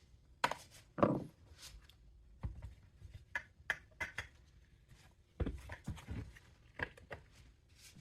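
Irregular knocks and clicks of hard plastic and metal parts and tools being handled while a string trimmer is taken apart, with the loudest knocks about half a second and a second in and a cluster of knocks a little past the middle.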